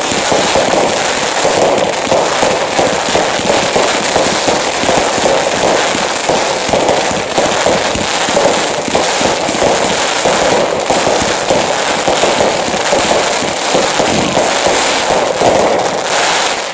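Fireworks display with many shells and comets firing at once: a dense, unbroken run of bangs and crackling that stops abruptly at the end.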